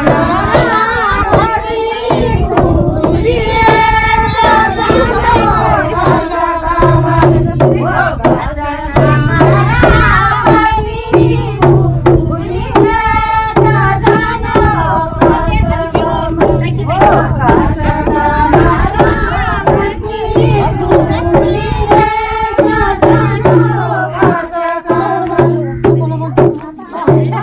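Kumauni Holi folk song: voices singing over steady hand-drum beats, with held notes sounding underneath.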